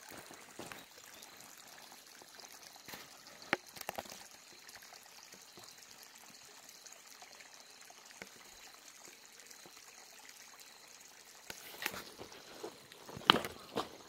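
Shallow stream trickling faintly over stones and gravel. A few sharp knocks break in about three and a half seconds in and again near the end, the loudest just before it ends.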